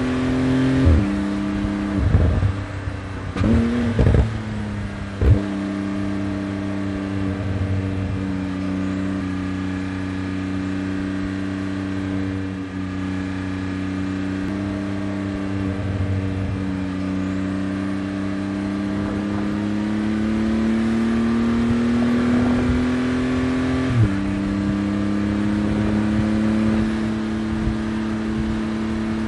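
Porsche 911 GT2 RS's twin-turbo flat-six running hard at speed. In the first five seconds its note drops sharply several times with loud cracks, then climbs slowly in pitch under acceleration until a gear change about 24 seconds in drops it suddenly, after which it climbs again.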